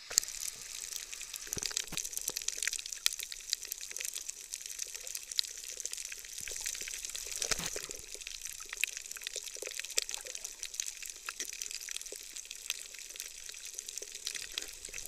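Water heard through an underwater camera over a coral reef: a dense, steady crackle of fine clicks and hiss that cuts in abruptly at the start.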